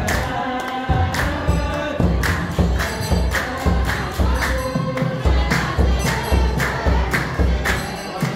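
Choir singing a hymn to a steady deep drum beat about twice a second, with sharp percussive strokes in time.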